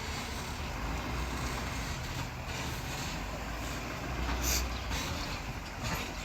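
A truck driving: steady engine and road rumble, with a brief high hiss about four and a half seconds in.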